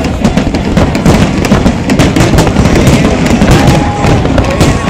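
Large fireworks display: a dense, continuous barrage of shell bursts and sharp crackling over a steady low rumble of booms, loud.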